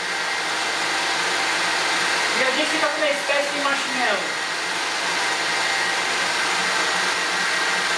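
Cuisinart stand mixer running steadily, whisking egg whites with hot sugar syrup into an Italian meringue that is being beaten until it cools.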